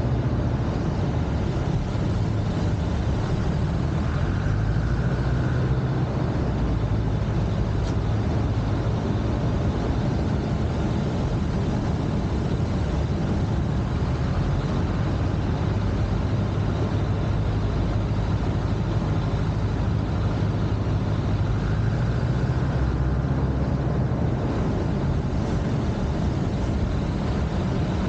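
Piper L-4 Cub's small four-cylinder Continental engine running steadily, with a constant rush of air noise over it, as the plane comes in to land. The engine note shifts slightly about four seconds in and again near the end.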